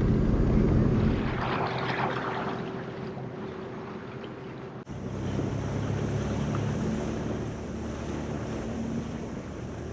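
Sea-Doo personal watercraft engine running steadily at low speed, then after an abrupt cut about halfway through, running under way with wind and water hiss rushing past.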